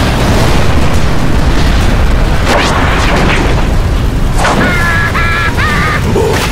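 Cartoon blizzard wind sound effect: a loud, steady rush of storm wind with a few brief sharper gusts.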